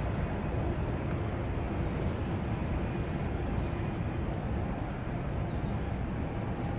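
Jet airliners taxiing, their engines running at low power: a steady low rumble.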